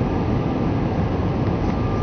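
Airbus A319-111 cabin noise in the climb: a steady rumble and hiss of its two CFM56 turbofan engines and the airflow, heard from inside the cabin, with a faint steady whine above it.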